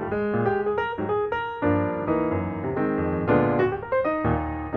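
Background piano music: a light melody of single notes over chords, with notes struck in quick succession.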